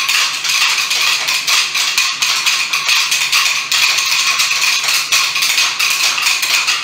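A group of children shaking and clacking small handheld percussion instruments together, making a dense, continuous rattling clatter of many quick clicks.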